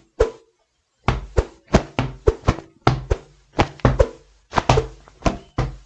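Edited foley punch effects playing in quick succession: cushion hits layered with a swung-stick whoosh and a cloth snap, making a rapid run of sharp thudding blows, several a second.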